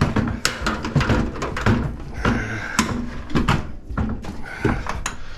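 Sheet-metal outer cover of a microwave oven being worked loose and pulled off: a quick run of irregular knocks, rattles and scrapes.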